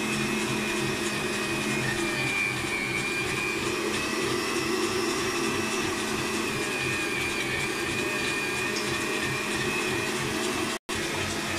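Kenwood Chef stand mixer running its mincer attachment, a steady motor hum with a high whine, as strips of raw beef are fed in and ground. The sound drops out for a split second near the end.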